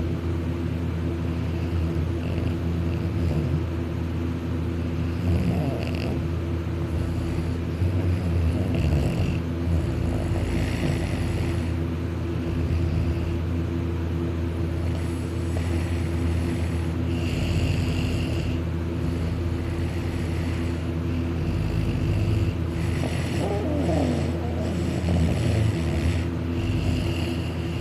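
A man snoring while asleep on his back with his mouth open, snores swelling every few seconds over a steady low hum.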